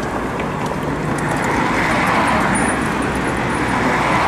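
Road traffic crossing the bridge: a steady rush of passing cars' tyres and engines, swelling a little about halfway through and again near the end.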